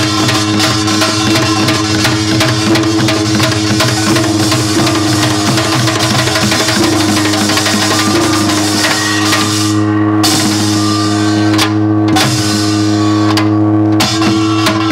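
Korean samul nori percussion ensemble playing fast: janggu hourglass drum, buk barrel drum, kkwaenggwari small hand gong and jing gong, dense rapid strokes over a steady ringing tone. The bright metallic clatter stops for brief moments a few times in the second half.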